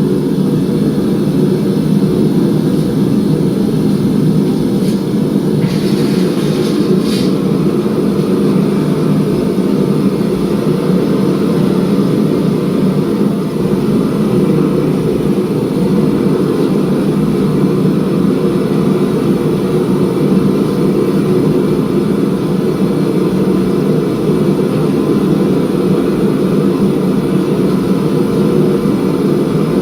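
Forging equipment running with a steady, unchanging low drone, with a couple of faint brief higher sounds about six and seven seconds in.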